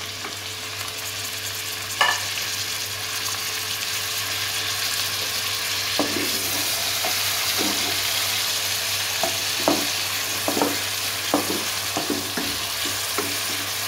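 Chopped onions sizzling in hot oil in a kadai, a steady frying hiss that builds slightly. From about six seconds in, a wooden spatula stirs them, with repeated short scrapes and knocks against the pan.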